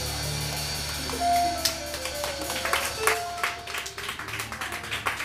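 A live band's closing chord held low and steady, then, about a second in, scattered clapping from a small audience, with a few short instrument notes over it.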